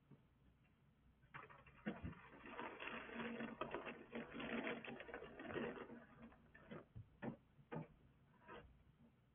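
Long-handled snow brush sweeping and scraping snow off a car's roof: a quick run of rough strokes from about a second in, then a few separate strokes near the end. Faint, picked up by a security camera's microphone.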